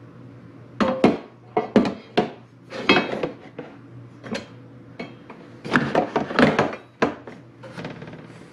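Hard parts from a Starlink kit being handled and set down on a hard surface: a string of knocks, clinks and rattles in two bursts, the second about six seconds in.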